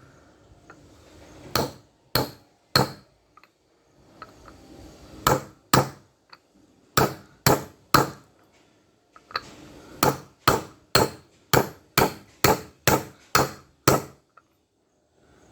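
Hammer blows on a 22 mm socket, driving a 6201 wheel bearing by its outer race into a scooter's front wheel hub. The sharp metallic strikes come in short groups at first, then a steady run of about two a second near the end.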